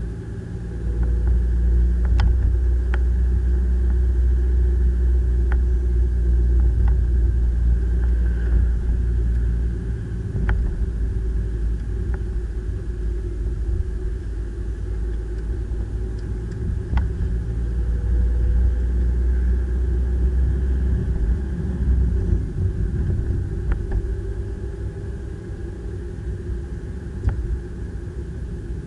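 A car's low engine and road rumble heard from inside the cabin while driving steadily. It grows louder about a second in and eases off after about twenty seconds, with a few light ticks scattered through.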